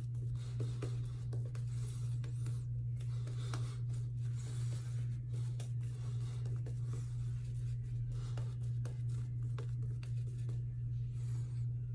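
Shaving brush with a grey wolf hair knot working lather on the face: irregular soft swishing and scratchy strokes. A steady low hum is the loudest thing throughout.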